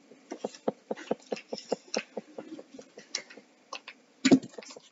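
Irregular small clicks and taps of plastic tubes and caps being handled over a table, with one louder knock about four seconds in.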